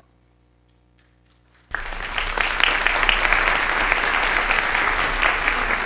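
A large audience applauding. The clapping starts suddenly after nearly two seconds of near silence and keeps up steadily.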